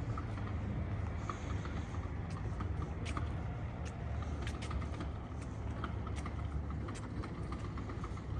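Steady low rumble of idling and passing bus and vehicle engines, with scattered light clicks and taps over it.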